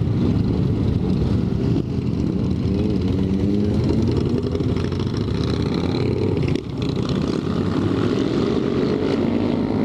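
A Honda Grom's small single-cylinder engine running under way, heard from the rider's helmet, its pitch climbing as it accelerates, with a short dip about six and a half seconds in. Other motorcycle engines are mixed in around it.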